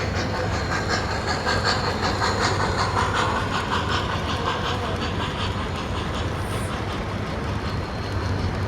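Train wheels clicking over rail joints in a steady rhythm of about four clicks a second, over a low steady hum. The clicking fades out after about six seconds.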